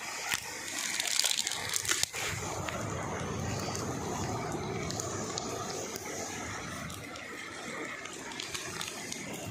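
Muddy floodwater running steadily through a flattened wheat crop, with dry wheat stalks crackling and rustling about a second in.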